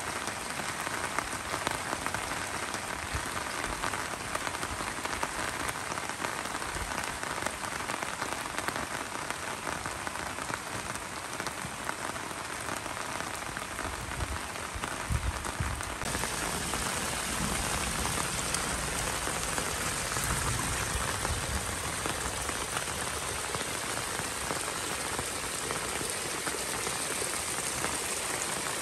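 Heavy rain falling steadily, splashing into puddles on the ground.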